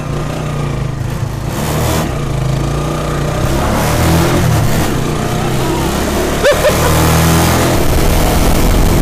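Motorcycle engine of a motorbike-and-sidecar tricycle pulling away and accelerating, heard from inside the sidecar, with wind and road noise growing louder over the first few seconds.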